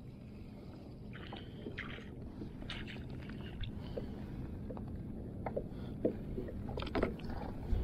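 Water lapping against a plastic kayak's hull, with scattered light splashes and clicks as a squid is reeled in and lifted out of the water.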